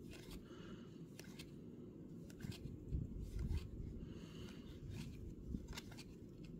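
A stack of Topps baseball cards being flipped through by hand: a soft slide and light flick of card stock each time a card moves to the other stack, about once a second, over a low steady hum.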